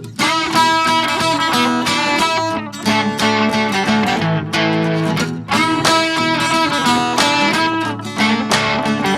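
Background music led by strummed and plucked guitar, with a steady rhythm.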